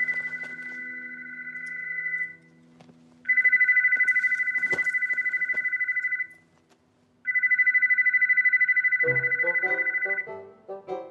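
Landline telephone ringing with an electronic two-tone trill, three rings of about three seconds each with a second's pause between them. Background music plays underneath, with a run of notes coming in near the end.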